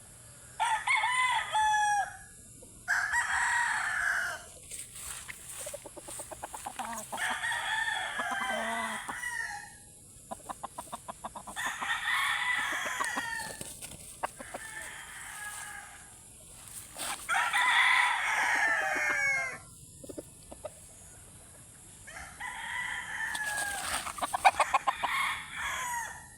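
Gamefowl roosters crowing: about six long crows a few seconds apart. Between some crows there are short runs of quick clucking pulses.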